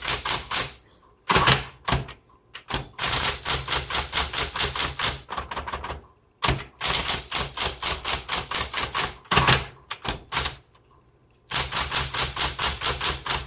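Smith Corona Electra 210 electric typewriter typing in quick runs of keystrokes, several strikes a second, broken by short pauses between runs.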